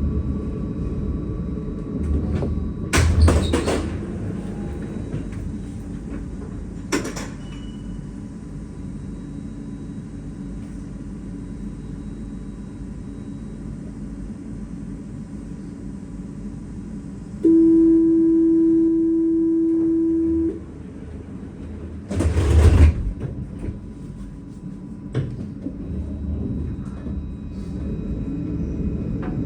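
Paris tram running with a low steady rumble, its sliding doors making a loud rushing burst about 3 s in and again about 22 s in. Shortly before the second burst a steady warning tone sounds for about three seconds.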